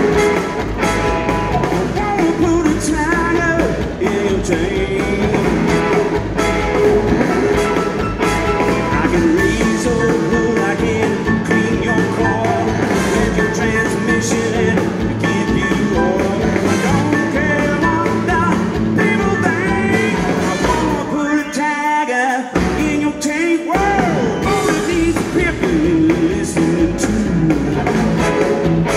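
A live blues-rock band playing, with a male lead singer over electric guitar, bass and drums. About 22 seconds in, the band stops briefly, for a couple of seconds, then comes back in.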